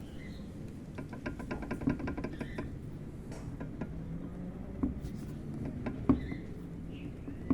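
Worn ZF Sachs shock absorber from a Honda HR-V, worked by hand: its rod clicks and rattles quickly for nearly two seconds from about a second in, then gives a few single knocks. The noise comes from play in the shock absorber rod.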